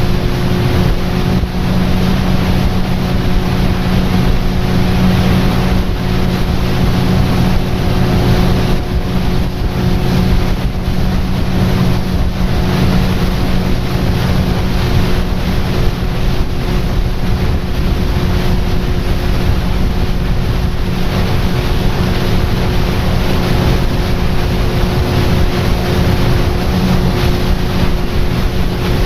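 Tour boat's motor running steadily at cruising speed with a constant hum, with wind rushing over the microphone and water noise from the hull.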